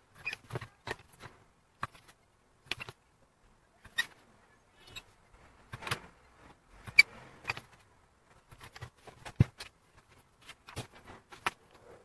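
Bench-top hand press punching holes in a leather strip: a string of irregular sharp clicks and clacks from the press and punch, sometimes several a second, with a heavier knock about nine seconds in.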